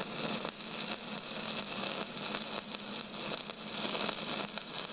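Steady crackling hiss over an even low hum.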